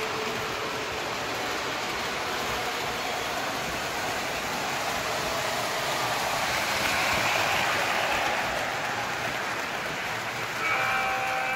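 O scale model trains running on the layout's track: a steady rolling rumble and whir of wheels and motors, growing louder about six to eight seconds in as a train passes close. A held tone of several pitches starts near the end.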